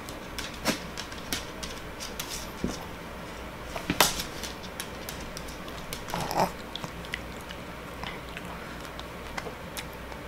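Shih Tzu's claws clicking and tapping irregularly on a hardwood floor as the dog turns and shuffles about. There is a sharper knock about four seconds in and a short, louder burst of sound about six seconds in.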